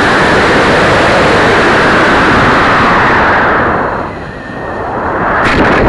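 Model rocket motor firing, heard through a camera mounted on the rocket itself: a loud, steady rushing hiss of thrust during the climb. It dips about four seconds in and swells again near the end.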